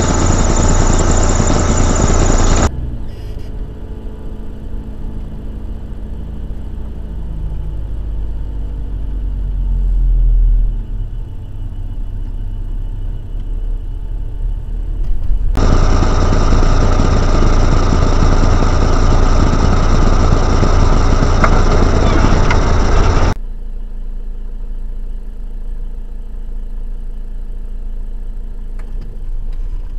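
Car engine and road noise heard from inside the car, steady and loud. In the quieter middle stretch the engine pitch changes as it speeds up and slows. The sound changes abruptly three times, where one recording cuts to the next.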